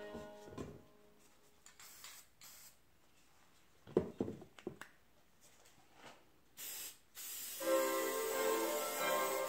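Aerosol spray can hissing in short bursts, then more steadily near the end, with a quick cluster of knocks about four seconds in. Background music fades out at the start and comes back in near the end.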